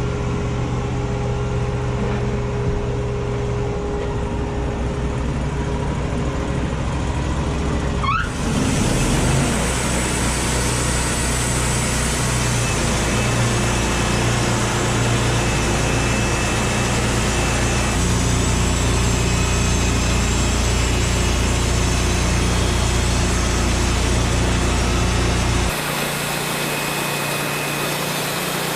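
Engine of heavy machinery running steadily. A brief rising whine about eight seconds in marks an abrupt change in tone, and the tone shifts again near the end.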